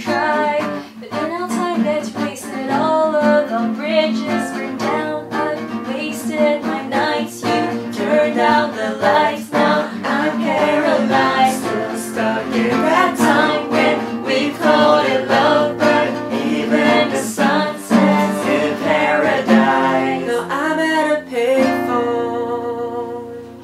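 Voices singing together to a strummed acoustic guitar, ending on a final chord that rings on and fades away near the end.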